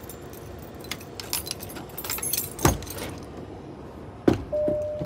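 Keys jangling and clinking, with two sharp knocks, as a driver climbs into a semi-truck cab. Near the end a steady electronic chime starts beeping on and off.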